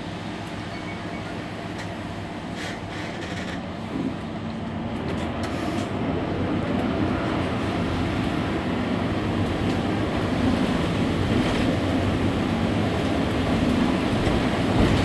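Mercedes-Benz Citaro C2 Hybrid city bus running with a low steady engine hum that grows louder from about four seconds in, then holds.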